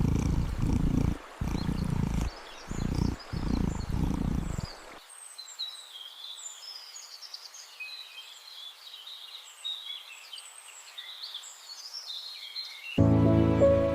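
A low rumbling animal sound in several bursts with short breaks, stopping about five seconds in; after it, birds chirping for several seconds, and music begins near the end.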